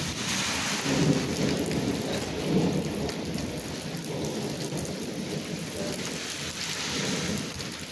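Heavy rain falling, a dense steady hiss, with a low rumble under it that swells about a second in and again about two and a half seconds in.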